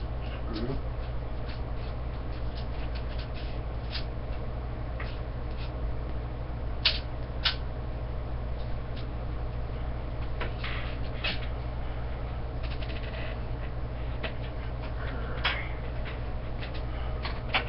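Scattered clicks and light knocks of the metal rods and brackets of a Supersonic SC-603 TV antenna being handled and fitted together, the two sharpest about seven seconds in. A steady low hum runs underneath.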